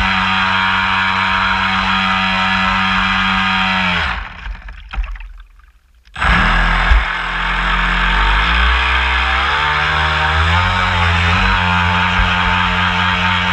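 Homemade RC boat's motor running with a steady whine over the rush of water, then winding down about four seconds in, cutting out for about two seconds, and spinning back up with its pitch wavering as the throttle changes.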